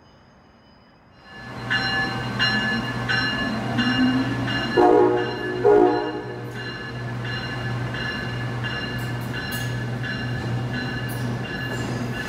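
Amtrak ACS-64 electric locomotive in a station, its bell ringing steadily over a low electric hum, with two short horn blasts about five seconds in.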